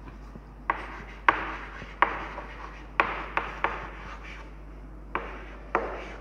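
Chalk writing on a chalkboard: sharp, irregular taps as the chalk strikes the board at the start of strokes, with scratchy rubbing of chalk on the board between them.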